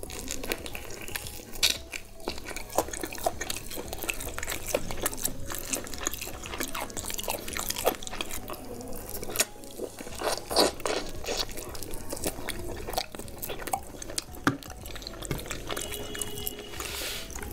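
A person biting and chewing a sauce-glazed barbecue chicken leg: a steady run of sharp, wet smacks and crunches.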